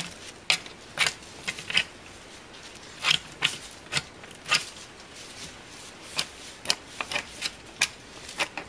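A sharp Solingen knife scraping and cutting down a green sapling in short strokes, in irregular runs of a few with a pause about halfway through. The strokes scuff at cold, frozen bark that will not strip off cleanly.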